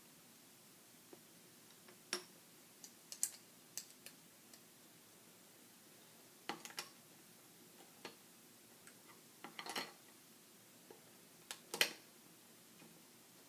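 Small plastic LEGO pieces clicking and clattering as they are handled and pressed together, in scattered groups of sharp clicks.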